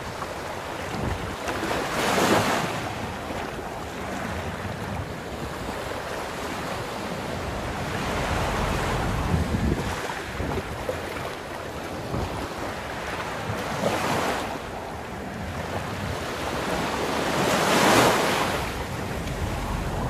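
Sea surf breaking and washing up a sandy beach, swelling and ebbing every few seconds, loudest about two seconds in and again near the end, with wind buffeting the microphone.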